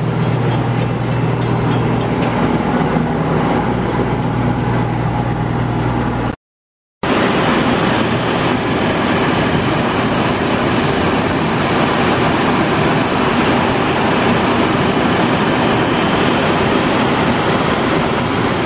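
Diesel engine of a genset road-switcher locomotive running steadily, with a low hum and a rushing noise. The sound drops out completely for about half a second about six and a half seconds in, then returns louder and more rushing.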